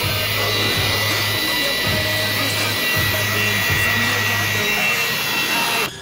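A handheld electric cleaning tool's motor running steadily with a high whine as it is worked over a refrigerator's compressor compartment, with background pop music. The motor sound cuts off suddenly near the end.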